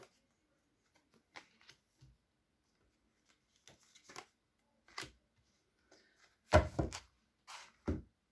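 Tarot cards being handled and laid out on a table: scattered soft taps and slaps, the loudest a quick cluster about two-thirds of the way through and one more knock near the end.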